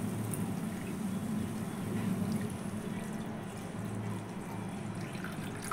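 Water poured in a steady stream into a non-stick frying pan holding a fried paste.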